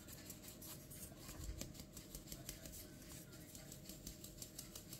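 Faint, quick, even taps of a hand knocking a metal flour sieve, shaking flour through its mesh into a steel mixing bowl.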